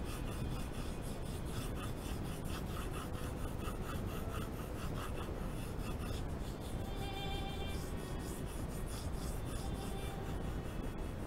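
Colored pencil scratching on drawing paper in quick, repeated shading strokes, with faint music underneath.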